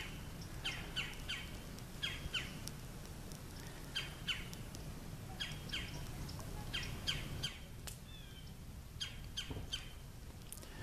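Pileated woodpecker calling: short, falling notes in groups of two or three, repeating every second or so, with a brief different warbling call about eight seconds in, over a steady low rumble.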